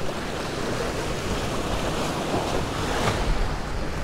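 Surf washing and breaking against the rocks of a jetty, a steady rushing wash, with wind buffeting the microphone.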